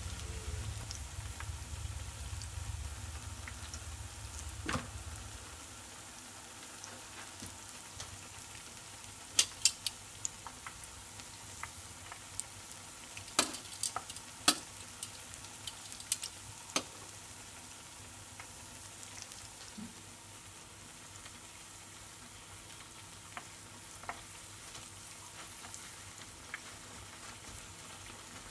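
Kakiage tempura of potato, carrot and spinach deep-frying in a pot of oil: a steady sizzling hiss with scattered sharp pops, most of them in the middle of the stretch.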